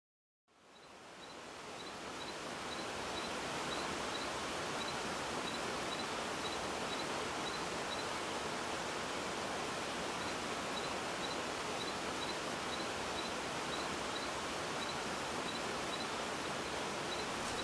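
Steady rush of a forest stream's running water, fading in over the first few seconds, with a faint high chirp repeating about every two-thirds of a second.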